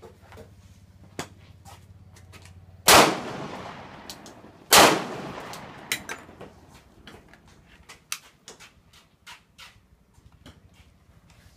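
Two loud pistol shots about two seconds apart, each trailing off in a long echo, with fainter sharp reports scattered before and after them.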